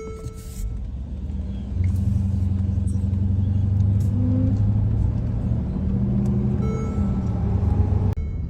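A 2013 Mercedes-Benz GL450 being driven, heard from inside the cabin: a steady low engine and road drone that grows louder about two seconds in, then cuts off abruptly near the end. No grinding or chain-jumping from the transfer case is heard; its replaced chain is running smoothly.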